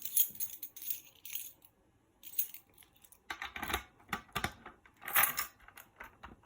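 Irregular clicks, clinks and rattles of small hard parts being handled: a Gamewell MS-7 fire alarm pull station and its key.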